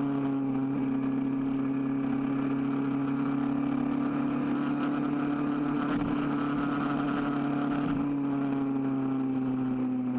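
Kawasaki Z1000R's inline-four engine running steadily at highway cruising speed, its pitch easing slightly about eight seconds in.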